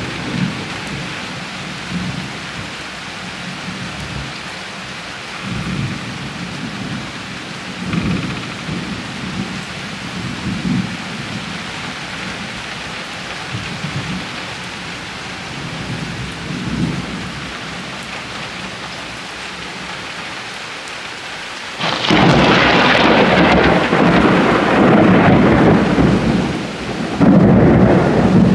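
Steady rainfall with soft low rumbles of thunder every few seconds. About three-quarters of the way through, the storm suddenly grows much louder for several seconds, eases briefly, and swells again near the end.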